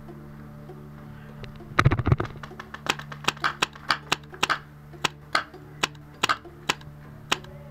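Magfed paintball marker firing single shots at close range, each a sharp pop, roughly two a second from about three seconds in. Just before that, about two seconds in, there is a louder jumble of pops and knocks.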